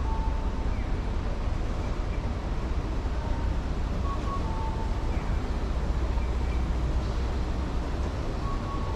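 Busy city street ambience with a steady low rumble of traffic and wind. Over it, a two-note descending electronic chime repeats about every four seconds.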